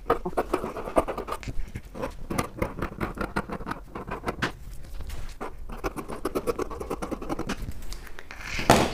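Fabric shears cutting knit fabric on a table: a run of short snips as the blades close, with the cloth rustling and scraping under the hands. Shortly before the end, a louder rustle as the cut cloth is swept aside.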